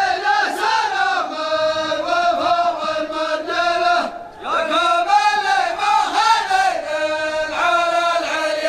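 A group of men chanting in unison into a microphone, in two long sung phrases with a short break about four seconds in.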